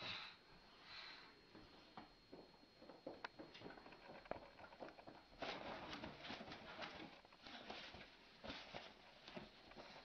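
Faint scuffle between a cockatoo and a cat on a cloth sofa: scattered soft taps and clicks, then, about halfway through, a quick run of short rustling bursts, several a second, as the cat swats at the bird.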